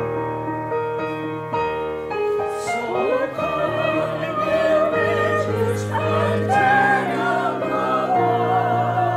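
Church music: voices singing a slow melody with vibrato over held accompaniment chords, the singing entering about three seconds in.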